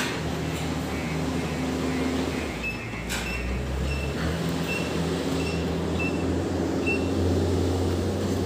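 Steady low hum of heavy machinery running, with a run of short, evenly spaced high peeps, about two a second, through the middle.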